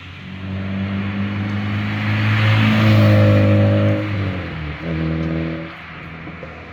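A car's engine and exhaust as it drives past under acceleration, loudest about three seconds in. The engine note drops out briefly about four and a half seconds in, picks up again, then fades away.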